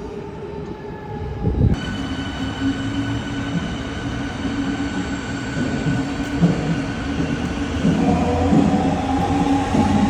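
Berlin S-Bahn electric train running, with a low rumble of the wheels and a set of steady, even-pitched whining tones that come in abruptly about two seconds in and shift to a lower set near the end.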